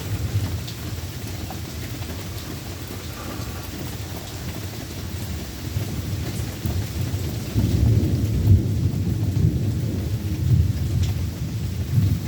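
Rain falling steadily with low rolling thunder, the rumble growing louder about seven or eight seconds in. Scattered sharp ticks of drops land through it.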